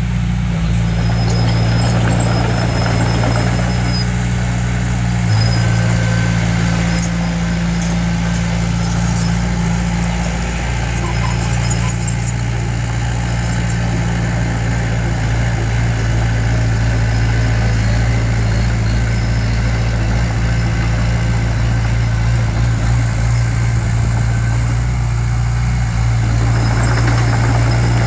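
Heavy construction machine's diesel engine running steadily, a low continuous drone.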